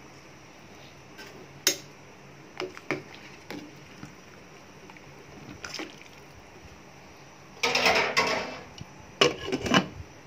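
A metal ladle stirs soup in a stainless steel pot, giving scattered single clinks and knocks against the pot, with liquid sloshing. Near the end comes a busier clatter, twice, as the glass lid is handled and set on the pot.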